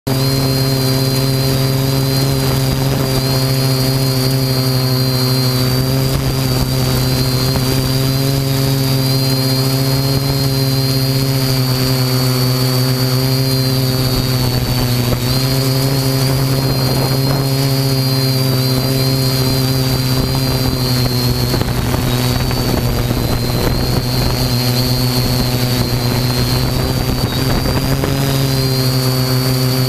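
Galaxy 7000 quadcopter's electric motors and propellers running in flight: a steady, loud drone with a high whine that wavers slightly in pitch, over a noisy hiss.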